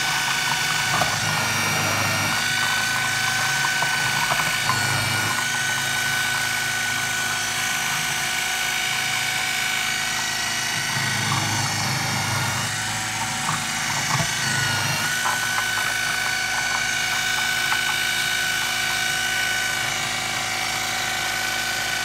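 KitchenAid food processor running steadily as it shreds broccoli fed down the chute: a constant motor whine with light clicking from the pieces against the spinning disc.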